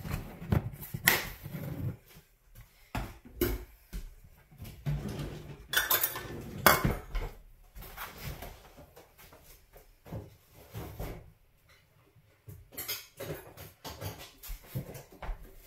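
Kitchen dishes and utensils clinking and knocking at irregular intervals, quieter for a few seconds in the middle.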